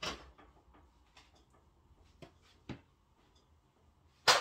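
Kitchen handling sounds: scattered light clicks and knocks of dishes, drawers or cupboard doors, ending in two loud, sharp clacks near the end.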